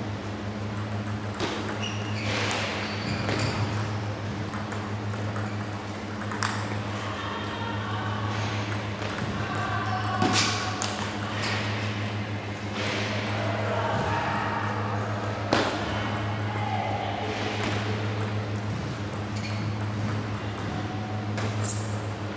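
Table tennis ball clicking as it is struck back and forth off rubber-covered bats and bounced on the table during rallies, in irregular sharp ticks. A steady low hum runs underneath.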